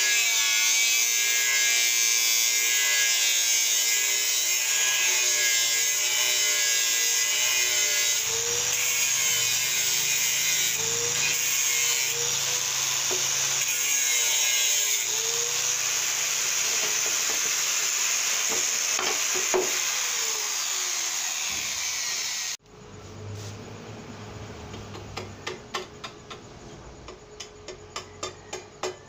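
Handheld angle grinder cutting through a metal bar with a cut-off disc: a loud steady grinding whose pitch wavers as the disc bites. It cuts off suddenly near the end, followed by a quick run of light taps, a few a second, growing louder.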